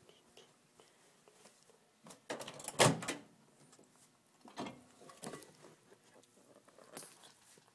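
A door shutting with a thud about three seconds in, then a few lighter knocks and handling sounds.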